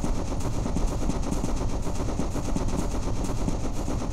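Steam engine running: rapid, even clattering beats over a steady hiss of steam.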